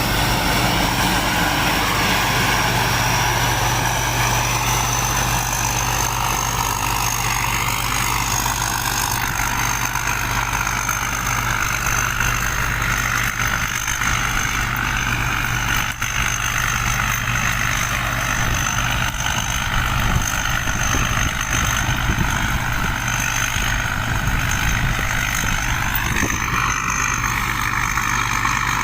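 Heavy diesel machinery engine running steadily under load, with a thin high whine held over the engine note.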